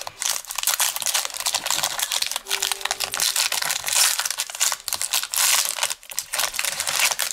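A 2019 Panini Playoff football card pack's plastic wrapper being torn open and crinkled in the hands: a dense, continuous crackling with many small clicks.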